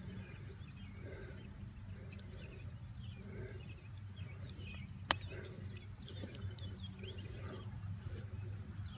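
A single sharp click of a golf club striking the ball on a chip shot, about five seconds in. Faint bird chirps are scattered throughout over a low steady hum.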